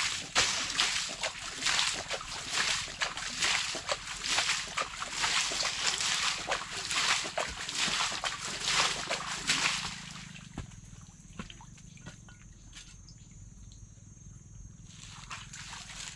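Water sloshing and splashing in irregular, busy strokes for about ten seconds, stopping abruptly. After that only a faint steady low hum and a thin high steady tone remain, with a brief swell near the end.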